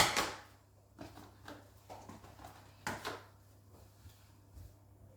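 Dishes and jars being lifted out of a dishwasher rack and set down on a kitchen bench: one loud knock right at the start, then a handful of lighter clinks and taps.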